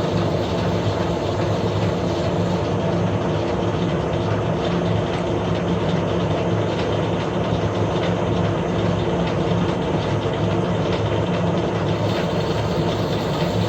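Metal lathe running steadily, its motor and gearing giving a constant low hum under an even mechanical noise, as it machines an internal thread with the spindle in reverse.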